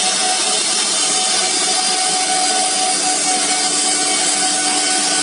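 CNC nesting router cutting grooves into an MDF board: a loud, steady spindle whine over the dense noise of the bit in the board, with a second, lower tone joining about halfway through.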